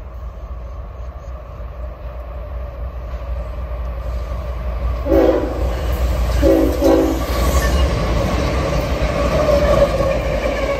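Norfolk Southern GE ES44AC diesel locomotive approaching, its engine rumble growing louder as it comes near and passes close. About five seconds in it sounds its air horn: one blast, then two shorter blasts in quick succession, followed by the clatter of the passing locomotives.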